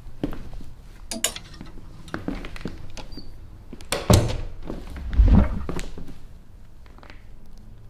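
Scattered knocks and clatters of things being handled at a closet, with a loud thump about four seconds in and a heavier, deeper thump about a second later.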